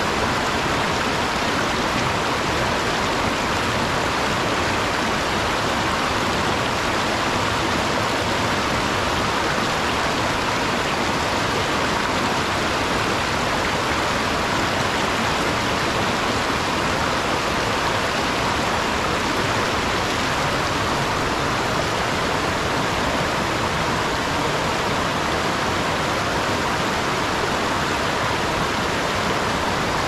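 Shallow creek water running over rocks and stones: a steady, even rush.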